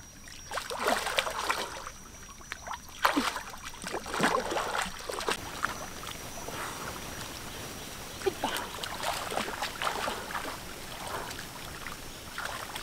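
Pond water sloshing and splashing in irregular bursts as a person wades neck-deep through lily pads, with small drips and plops.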